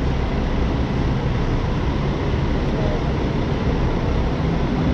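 Steady din of a bus terminal's platform area, with a low rumble from idling buses.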